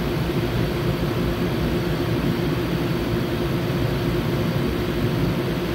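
Stulz commercial air-conditioning unit running with its compressor on: a steady mechanical hum under an even rush of fan air.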